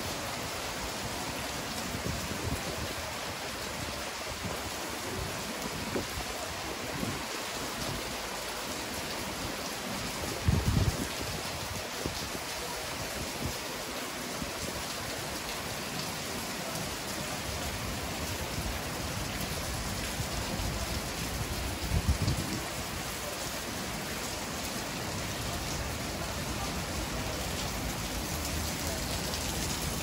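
Heavy rain falling steadily, a dense even hiss. Two brief low thumps stand out, one about ten seconds in and one about twenty-two seconds in.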